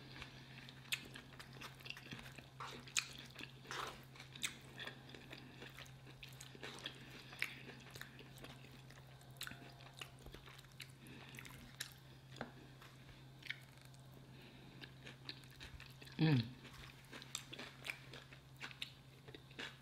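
Close-miked chewing and mouth sounds of someone eating a burrito bowl, with small clicks scattered throughout and a steady low hum underneath. About sixteen seconds in there is one short vocal hum that falls in pitch.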